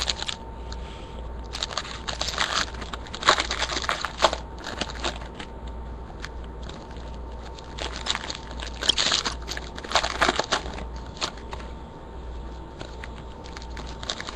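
Trading card packs and wrappers being handled, making irregular crinkling and rustling with a few louder crackles.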